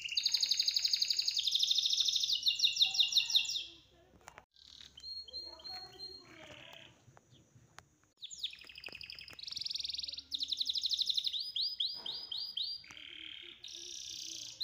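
High-pitched chirping and rapid trills in repeated bird-like phrases. They drop away between about four and eight seconds in, then start again.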